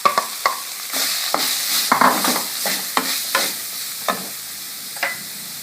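Chopped onions sizzling in hot oil in a pan, with a spatula scraping and knocking against the pan at irregular moments as they are stirred.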